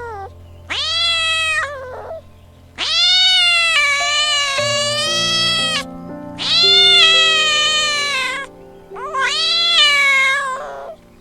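Domestic cat meowing four times in long, drawn-out meows, the longest lasting about three seconds, over soft background music.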